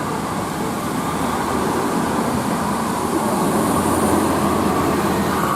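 A bus's engine running as it passes along the road, with tyre and road noise, growing louder toward the middle.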